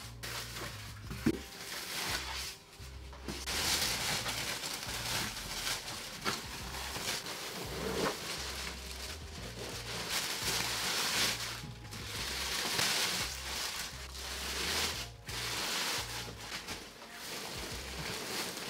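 Foam wrap and plastic packaging sheet rustling and crinkling as they are handled and pulled off a new flat-screen TV, in long stretches with short pauses.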